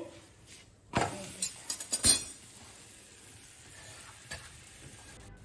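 Flat steel spatula scraping and clinking on an iron tawa as a bajra roti is turned over: a scrape about a second in, then a quick run of clinks near two seconds, the loudest. A faint steady hiss follows, with one more light click.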